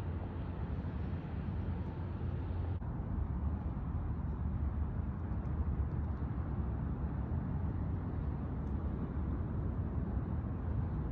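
Steady low rumble of wind buffeting the phone's microphone outdoors by open water, with a soft hiss above it.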